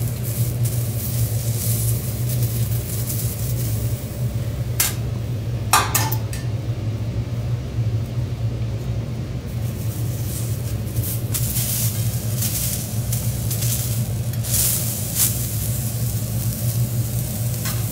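Scallops and a shrimp head sizzling on a steel teppanyaki griddle over a steady low hum. A knife and a fork clink sharply against the steel a few times about five to six seconds in.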